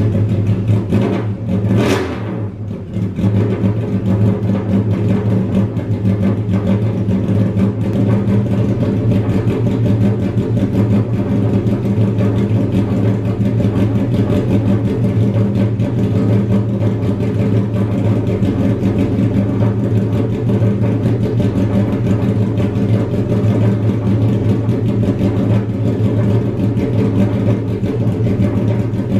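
Honda Civic EF hatchback's engine idling steadily through a home-built straight-pipe exhaust with no muffler, loud and low-pitched. A brief sharp sweep up in pitch and back comes about two seconds in.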